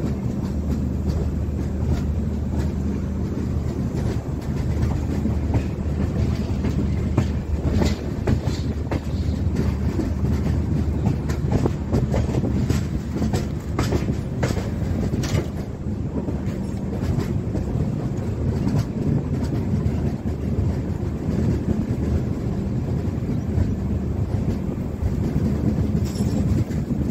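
Passenger train running along the track: a steady low rumble with the clickety-clack of wheels over rail joints, the clicks thickest through the middle.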